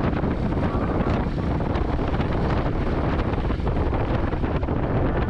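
Wind rushing steadily over the microphone of a moving motorcycle, with the bike's road and engine noise underneath.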